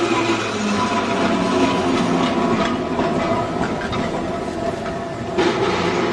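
London electric tram running along rails, with a steady whine and wheels clicking over the rail joints. A sharp clank comes near the end.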